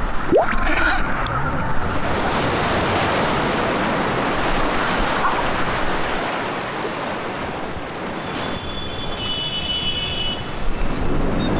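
Waves and rushing flood water, a steady loud wash, with a quick rising whoosh just after the start.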